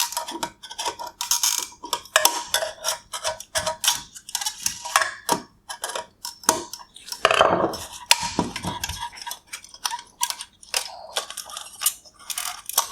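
The silver bezel and clips of an LED headlight projector being unclipped and worked off by hand: a busy run of small sharp clicks, scrapes and rattles of hard parts, with a longer scraping stretch about seven seconds in.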